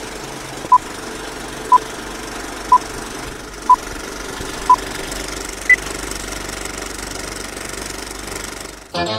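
Film-leader countdown sound effect: a steady film-projector clatter with a short beep once a second, five beeps at one pitch and then a single higher beep. The clatter fades out near the end.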